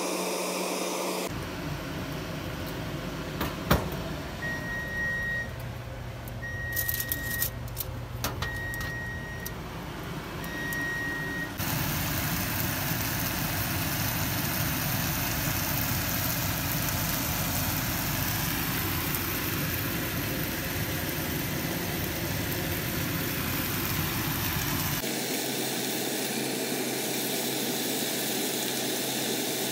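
A steady mechanical hum whose character changes abruptly a few times, with four long, even electronic beeps at one pitch about two seconds apart a few seconds in.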